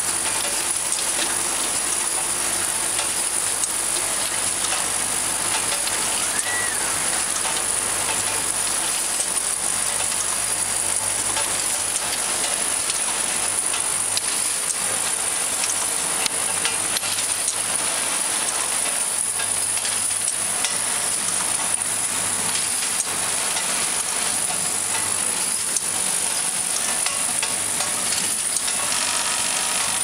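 GFZ-4 vial filling, stoppering and crimping machine running: a steady busy clatter of small ticks from the vials and moving parts, over a constant high hiss and a low hum that comes and goes.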